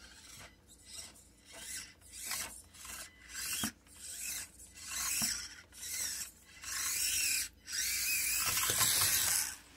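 Small battery-powered RC truck driven in short throttle bursts, its motor, gears and tyres giving about eight bursts of noise that grow longer, ending with one held for about two seconds near the end.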